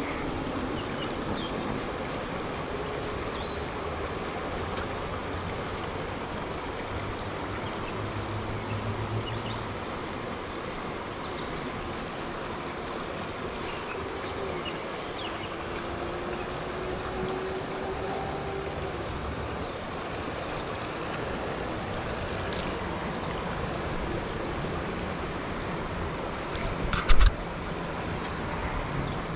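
Creek water flowing and rippling steadily past the bank. A single sharp knock stands out near the end.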